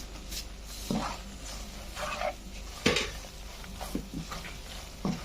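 A spoon knocking and scraping against a pan while stirring frying masala, in several separate strokes about a second apart.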